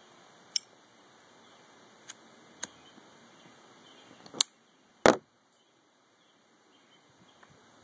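Zippo lighter being worked to light a cigarette: a few light clicks, then two sharp metal clacks a little past the middle, the second and loudest most likely the lid snapping shut after the cigarette is lit.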